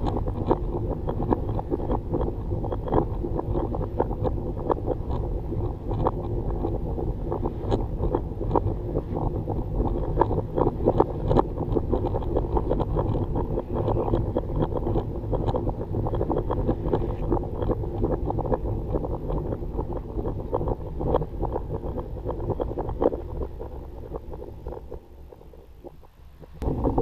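1965 Dodge Dart GT's engine idling steadily, its exhaust puttering with small irregular pulses, growing quieter near the end.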